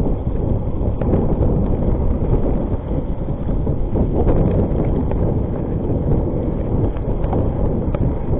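Wind buffeting the microphone as a Rockrider ST 520 mountain bike rides fast downhill over a leaf-covered dirt trail, with a steady tyre rumble and scattered small rattles and knocks from the bike going over bumps.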